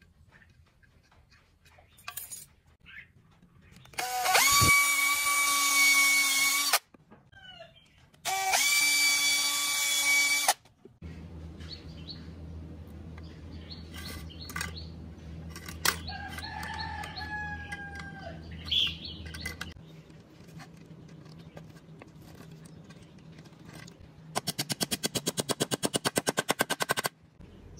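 Cordless drill motor run in two bursts of a few seconds each, a steady whine that climbs as it spins up. Near the end comes a rapid run of clicks lasting a couple of seconds.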